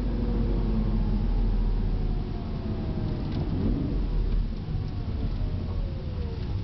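2004 Lamborghini Gallardo's V10 engine running on the road over steady low road rumble, its pitch falling and then rising again as the car eases off and picks up speed.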